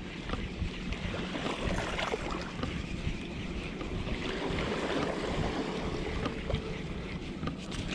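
Wind buffeting the microphone and small waves lapping at the shore, with a spinning reel being cranked as a jig is retrieved.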